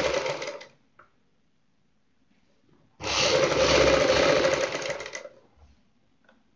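Domestic sewing machine stitching in two runs while edge-stitching a folded rib binding strip. The first run stops just under a second in, and a second run of about two seconds starts about three seconds in and slows to a stop. A small click falls between the runs.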